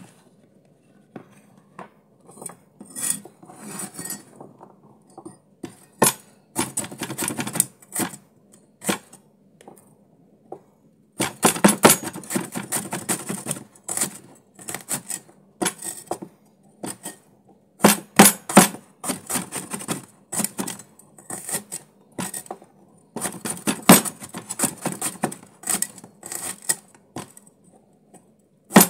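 Kitchen knife slicing shallots on a cutting board: runs of quick taps of the blade against the board, broken by short pauses.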